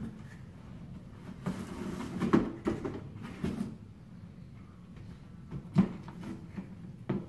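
Cardboard packaging being handled: a cardboard display insert slid out of its box, with scraping and rustling about two seconds in, then two sharp knocks near the end.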